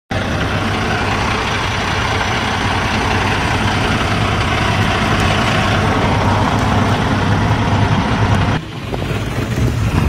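Vehicle engine idling, heard from inside the cab, with a steady low hum under a loud, even rushing noise. About a second and a half before the end it cuts off suddenly to a quieter, sparser sound.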